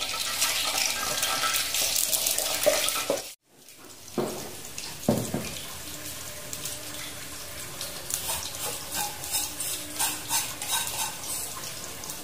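Tofu frying in hot oil in a wide pan: a loud, steady sizzle that cuts off suddenly about three seconds in. A quieter sizzle with scattered crackles follows, with a knock of cookware about five seconds in.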